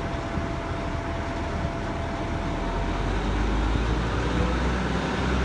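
Heavy dump truck engine running close by with a low rumble that grows louder over the last few seconds, over a steady background of road traffic.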